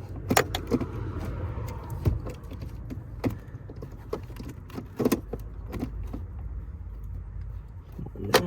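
Metal hand tools clinking and knocking at irregular intervals as a deep 10 mm socket on an extension is worked onto a bolt, over a steady low hum.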